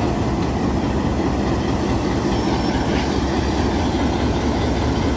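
Pakistan Railways PHA-20 diesel-electric locomotive's engine running loud and steady as it pulls a passenger train slowly out, with its wheels rolling on the rails close by.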